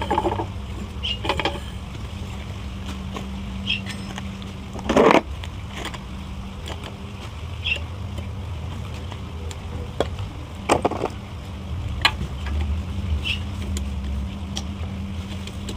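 Scattered clicks, ticks and a couple of louder knocks of tools and metal engine parts being handled during the teardown of a GX390-clone small engine, over a steady low hum.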